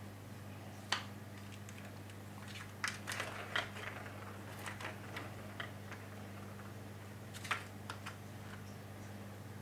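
Plastic ball-track cat toy (Catit Senses play circuit) clicking and clattering as a cat paws the ball around the track: scattered sharp clicks and knocks, one about a second in, a quick cluster around three seconds in, a few more around five seconds and a pair near the end.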